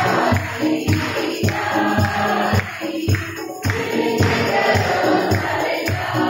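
Church hymn sung by a group, led by a woman's voice amplified through a handheld microphone, over a steady low beat about three times a second.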